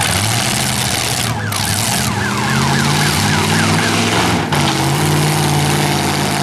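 V8 demolition-derby car engines running and revving under load as the cars manoeuvre and ram. A high sweeping tone repeats about four times a second for a couple of seconds midway, and about two-thirds of the way through the engine note drops and changes.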